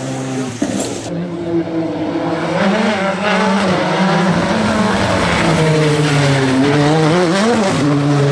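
Hyundai i20 rally car's turbocharged four-cylinder engine running hard through the stage. The note holds steady, then rises and falls quickly a few times about two-thirds of the way in as the revs change.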